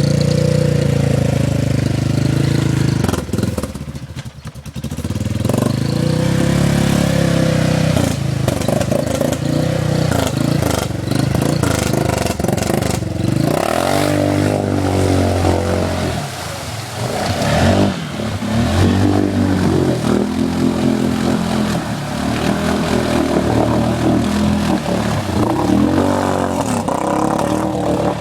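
Arctic Cat Mud Pro 700 ATV engine running and being revved, its pitch rising and falling again and again, most of all in the second half, with a brief drop in level about four seconds in.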